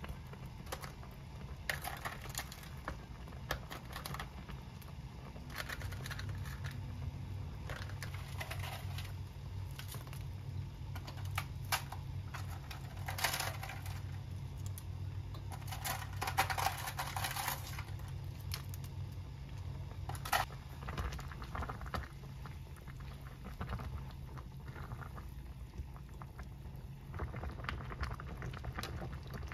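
Small kitchen handling sounds: scattered light clicks, taps and short rustles over a steady low hum that grows louder about six seconds in.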